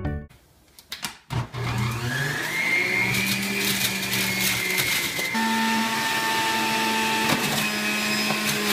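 Electric centrifugal juicer starting up about a second and a half in, its motor whining up to speed and then running steadily, the pitch shifting as fruit and vegetables are pushed down the feed chute.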